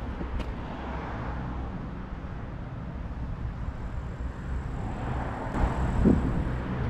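Steady outdoor background rumble with no clear single source, swelling a little near the end, with a brief soft knock about six seconds in.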